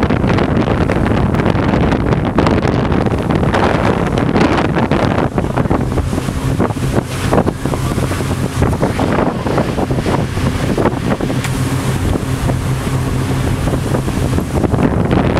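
Wind buffeting the microphone on the open deck of a pontoon ferry under way, with the boat's engine running at a steady hum underneath.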